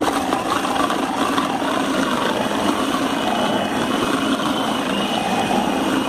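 Electric food processor running steadily, its blade grinding raw chicken breast into a fine mince, with a faint high whine above the motor noise.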